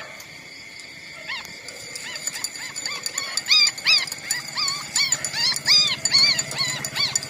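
A young puppy whining in a quick series of short, high-pitched cries, each rising and falling in pitch. They start about a second in and come faster and louder from about three seconds on.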